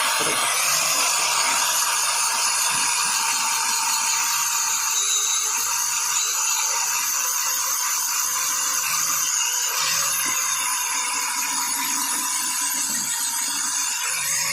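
4-inch angle grinder with a polishing pad, running steadily against a motorcycle engine casing: a high, steady motor whine over a rubbing hiss.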